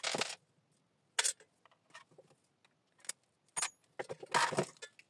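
Small metal parts being handled on a workbench: short clicks and metallic rattles as a meter coil with its laminated core, a screwdriver and loose screws are moved about. The sound comes in about five separate bursts, the longest near the end.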